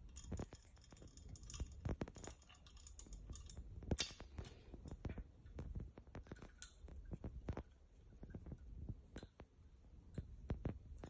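Faint, irregular small metallic clicks and clinks of an Allen key tightening studs into brass door handles, with a sharper click about four seconds in.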